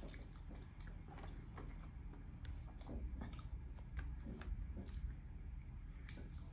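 A person chewing tender barbecued rib meat with the mouth close to the microphone: irregular wet clicks and lip smacks.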